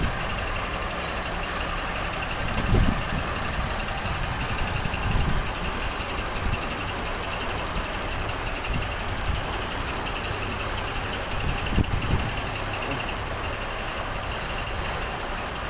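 Steady rumble of heavy vehicles running, with a high reversing alarm beeping over and over throughout. A few low thumps stand out, the loudest about three seconds in and again near twelve seconds.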